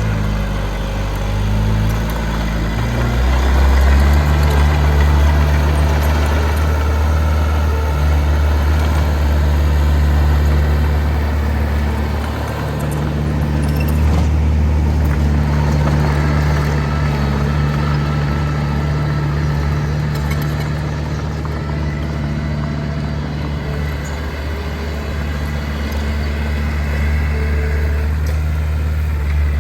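Heavy diesel engine of earthmoving machinery running loud and steady, its engine speed shifting in the first few seconds before it settles.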